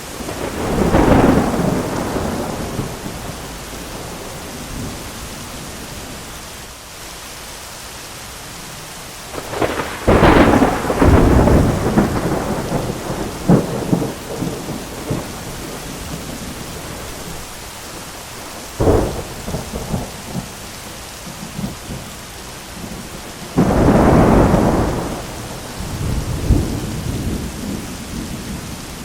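Heavy thunderstorm: steady rain with four loud peals of thunder over it. The first comes about a second in, a long rolling one follows partway through, then a sharp crack, and another rolling peal near the end.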